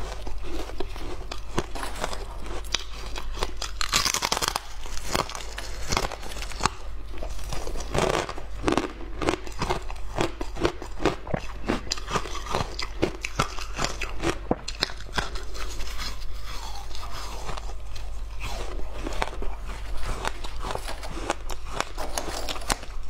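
Frozen passion fruit ice being bitten and chewed: a continuous run of sharp, crisp crunches as the hard ice breaks between the teeth.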